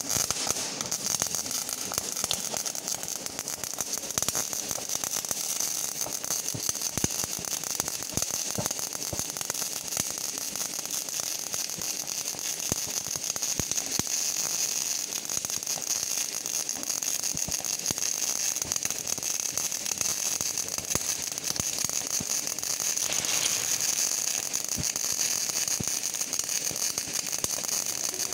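CO2-shielded MIG welding arc laying a continuous straight bead on steel plate: a steady, dense crackle with a hiss underneath.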